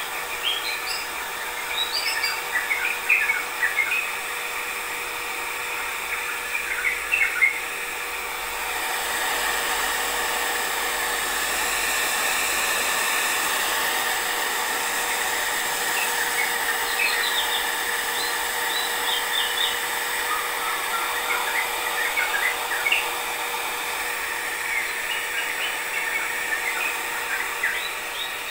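Hand-held hair dryer running steadily, a whoosh of air with a light motor whine, blowing on a wet long-haired cat's fur; it grows somewhat louder for a few seconds in the middle. Small birds chirp in short runs at intervals over it.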